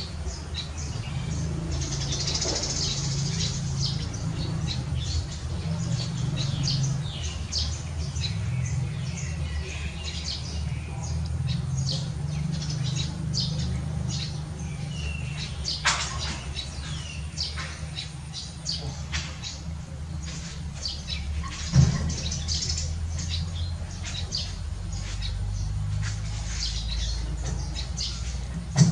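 Many quick, high chirps from small birds, over a steady low hum. A couple of sharp knocks come about halfway and two-thirds of the way through.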